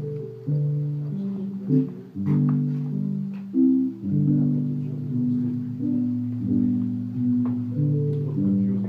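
Slow instrumental music: low chords, each struck and left to fade, changing about once a second, on a guitar-like plucked instrument.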